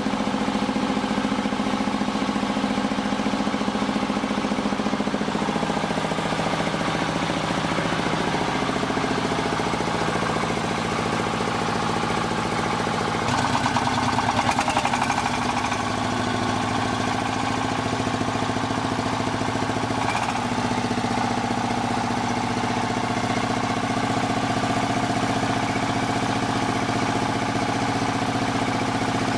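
Single-cylinder diesel engine running steadily and driving a rice milling machine by belt. Its note shifts about 13 seconds in, briefly getting louder, and shifts again around 20 seconds.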